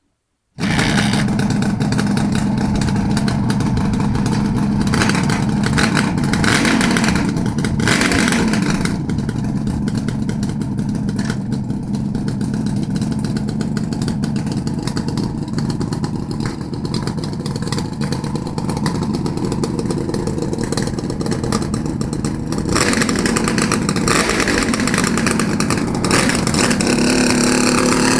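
Suzuki GT380 two-stroke triple running loud through steel silencers, revved up and down repeatedly with a crackling exhaust. The sound cuts in suddenly about half a second in.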